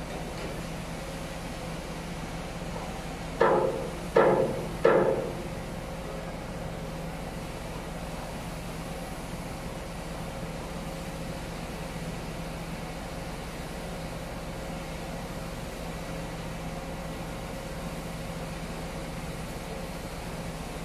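Three sharp clangs with short ringing tails, about three and a half seconds in, roughly three-quarters of a second apart. They sound over a steady machinery hum.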